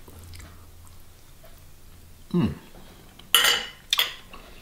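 Metal fork and knife clinking and scraping against a ceramic plate while food is cut, with a bright clatter and a sharp clink near the end as the fork is set down on the plate.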